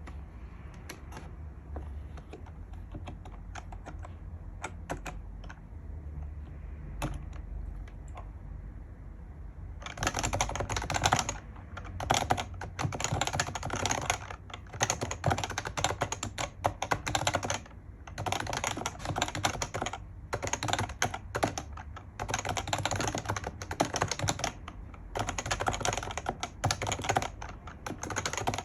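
Typing on an HHKB Professional JP keyboard with Topre electrostatic capacitive switches. A few scattered keystrokes over a low hum at first, then fast continuous typing in bursts with short pauses from about ten seconds in.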